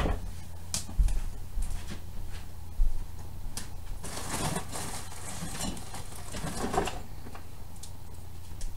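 A person moving about and handling things at a table: a loud dull thump at the start, a few smaller thumps in the first three seconds, then about three seconds of rustling and scraping with small clicks, over a steady low hum.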